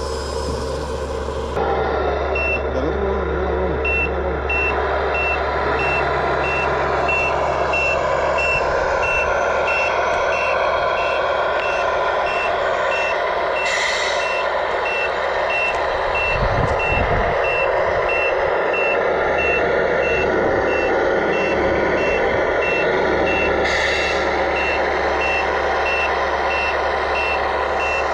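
Radio-controlled dump truck's sound unit playing a running diesel engine with a reversing beeper: a steady series of short, high beeps starting about two seconds in. Two brief hisses break in, one midway and one later.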